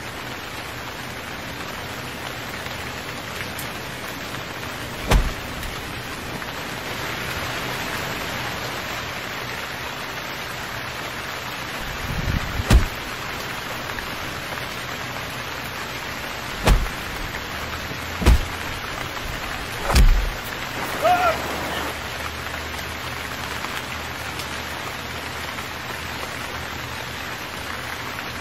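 Steady heavy rain falling on leaves and ground, broken by a handful of sharp, heavy thumps at irregular intervals and a brief high, pitched sound a little past the middle.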